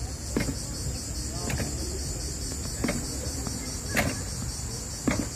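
Cicadas in the pine trees keep up a steady, high, pulsing chorus. A short knock comes about once a second over a low rumble.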